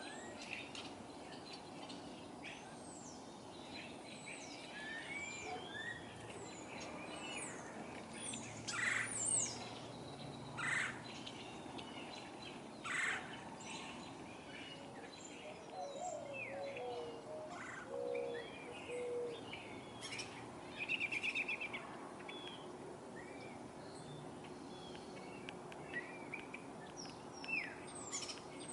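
Backyard birds chirping and calling, with woodpecker calls standing out loudly a handful of times and a short, quick rattling call about two-thirds of the way through.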